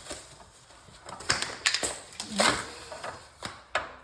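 Irregular sharp knocks and clicks, about half a dozen spread over a few seconds, from bike parts and tools being handled while an electric bike is assembled.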